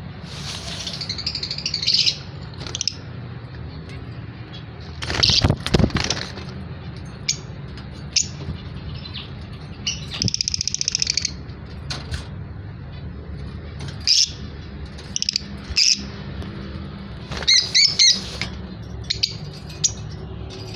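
Fischer's lovebirds chirping in a cage: scattered short shrill chirps and a few longer buzzy chatters, over a steady low hum. About five seconds in there is a loud rustling knock.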